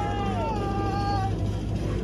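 A person's long, drawn-out cheer: one held call that dips in pitch at the start, then stays on a steady note for about a second and a half, over steady background noise.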